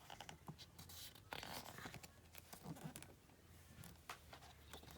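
Near silence with faint paper rustling and a few light handling clicks, as of photobook pages being held and turned.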